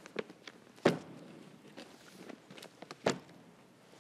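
Thick stacks of printed bill pages being lifted and set down on a table. There are two solid thumps, about a second in and near three seconds, with lighter knocks between them.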